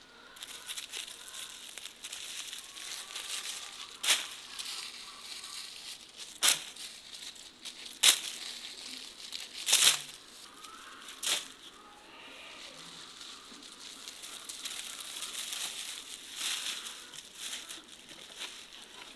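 Dry braided sorrel leaves rustling and crinkling as they are handled in a wooden crate, with five sharp crackles in the middle and a softer, steadier rustle near the end.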